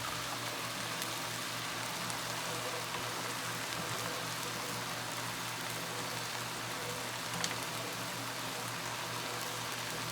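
Food sizzling in a pan on the stove, a steady fine crackle like light rain, over a low steady hum. One sharp click about seven and a half seconds in.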